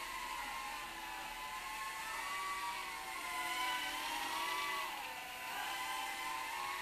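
Micro quadcopter's four 8 mm coreless motors and props whining in flight, several close pitches drifting up and down together as the throttle changes.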